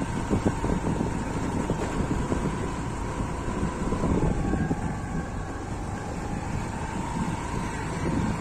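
A vehicle running along a rough dirt road: a steady engine whine that dips a little in pitch about four seconds in, over a low road rumble with small jolts and wind on the microphone.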